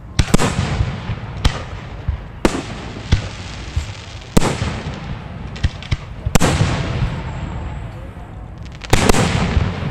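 Aerial fireworks shells going off at close range: a string of sharp booms, the heaviest about a third of a second in, around six and a half seconds and around nine seconds, with smaller bangs between, each trailing away in echo.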